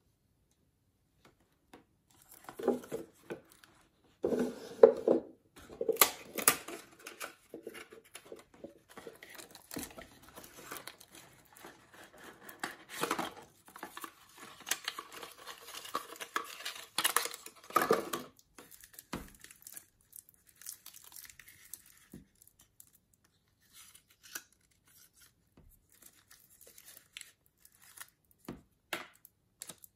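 Plastic wrap crinkling and cardboard watch-box packaging being handled, with irregular crackles and light knocks. It starts about two seconds in, is busiest through the first half, and thins to scattered small ticks after about the eighteenth second.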